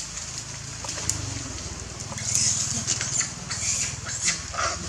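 Short splashes and patters of a monkey moving in shallow duckweed-covered pond water, coming in a quick run from about two seconds in, over a steady low motor hum.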